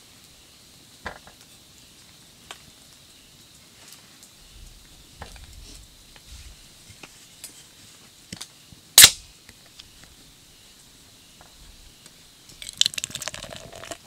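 Cups being handled on a wooden camp table: scattered light taps and one sharp click about nine seconds in. Near the end comes a short flurry of clinks as a drink is poured into a cup.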